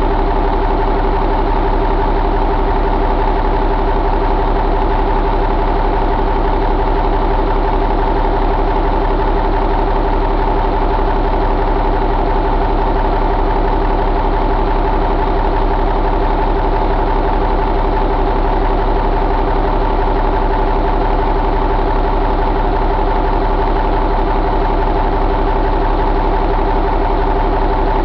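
Cummins M11 inline-six diesel engine idling steadily, heard close up in the engine bay.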